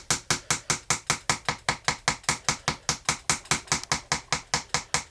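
Small hammer tapping a chisel to chip away at a treasure dig block, a fast, even run of about six sharp taps a second that stops just before the end.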